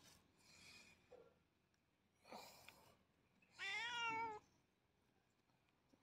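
A cat meows once, a single call of just under a second with a slightly wavering pitch, about three and a half seconds in. Faint short rustles are heard around it.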